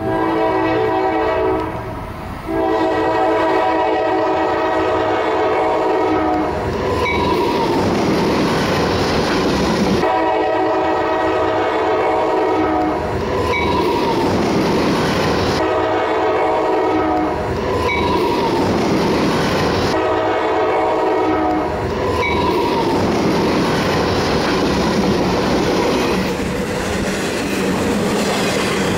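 CSX freight locomotive blowing its multi-note air horn in five blasts for a grade crossing: a short one, then longer ones, ending about 22 s in. Under the horn and after it, the passing double-stack container train makes a steady rolling rumble of wheels on rail with clickety-clack.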